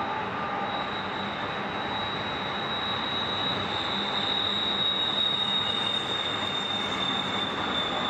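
A BNSF double-stack intermodal container train rolling past in a steady rush of wheel-on-rail noise, with a thin, high wheel squeal that comes in about a second in and holds almost to the end.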